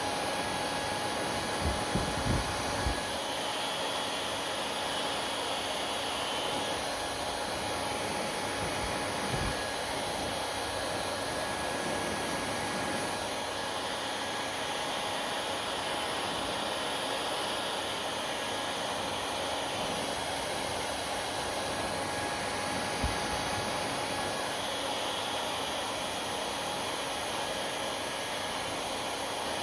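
Hair dryer running steadily: a constant rush of blown air with a faint steady motor whine. There are a few soft low bumps, a cluster about two seconds in and single ones about nine and twenty-three seconds in.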